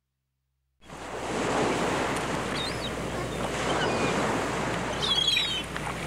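Steady rushing of surf that starts about a second in out of silence, with a few short high chirps over it.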